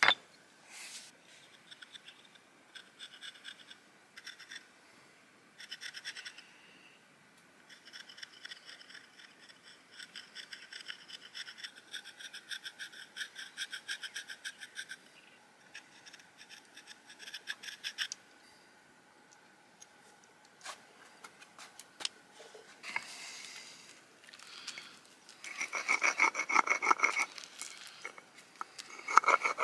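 A metal-pointed hand tool scratching into a flat stone disc, first in short squeaky bouts and then in a long run of quick scraping strokes. Near the end comes a louder rasping scrape in quick strokes as the disc's edge is ground against a flat abrasive stone slab.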